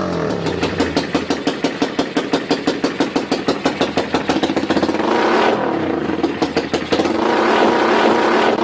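Motorcycle engine sample revving and running with a quick, even pulse, used as a break in an electronic dance remix.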